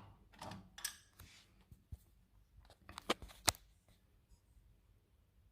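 Scattered metal clicks and taps of a hand wrench working a bolt on a motorcycle's shift linkage, a handful of sharp ticks at uneven spacing, the loudest a little past three seconds in.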